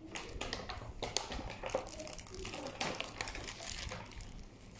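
Crinkling and rustling of a thin plastic takeaway bag and paper food wrapping being handled: a dense run of small, irregular crackles.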